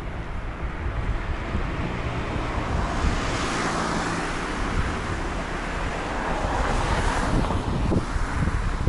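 Wind buffeting the microphone of a camera on a moving bicycle: a steady rushing noise that swells twice, about three and a half seconds in and again near seven seconds.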